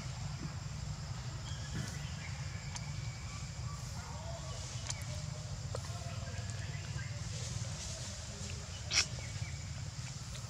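Outdoor background with a steady low hum, faint short chirping calls scattered through, and one sharp crackle about nine seconds in.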